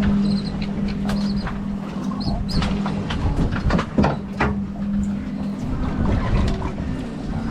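Charter boat's engine running with a steady hum, under a scatter of sharp knocks and clicks and a few short high squeaks.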